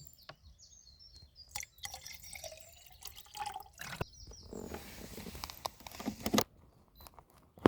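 Water running and dripping, with small clicks and knocks; birds chirp briefly near the start.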